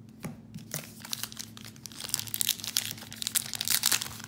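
Wrapper of a Topps Heritage baseball card pack crinkling and tearing as it is opened by hand. The crackle grows busier and louder from about halfway through.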